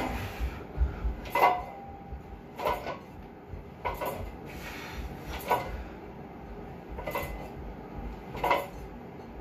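Sharp metallic clinks from a plate-loaded multi-grip barbell, the plates and hardware clanking on the bar once with each rep of a seated overhead press, about one clink every second and a half.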